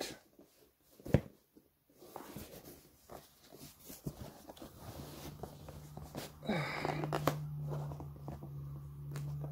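A cardboard shipping box handled and turned over in the hands: faint rustling and scraping, with a single sharp click about a second in. From about halfway on, a steady low hum runs under the handling noise.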